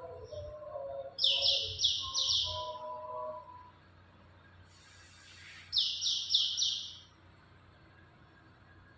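Pialing birds (cucak keling) calling: two runs of about four quick, high chirps some four seconds apart, over lower whistled notes in the first few seconds. A short hiss comes between the two runs.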